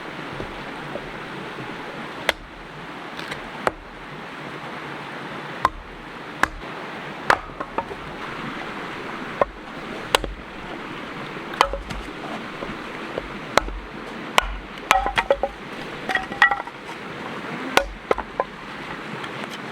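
A creek running steadily, with scattered sharp knocks and clinks over it, some ringing briefly, and a quicker cluster of clinks about three quarters of the way through.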